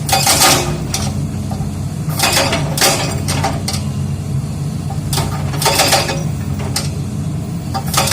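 Excavator's diesel engine running steadily while rock is broken, with irregular half-second bursts of harsh crunching and grinding, about eight of them.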